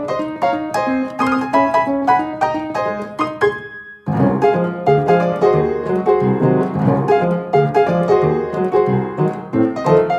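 Light instrumental background music of quick, separate notes. About four seconds in it breaks off for a moment, then starts again with a lower part added.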